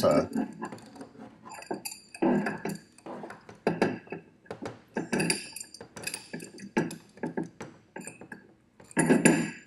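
Metal clinks and knocks as a wrench tightens a threaded gas fitting into a forge's gas regulator: an irregular string of sharp strikes, roughly one a second.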